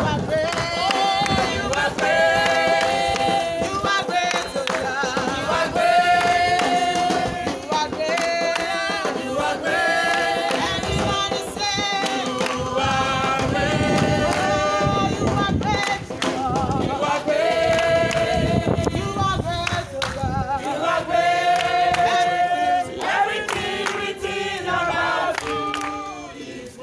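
A group of marchers singing a song together, many voices in held notes.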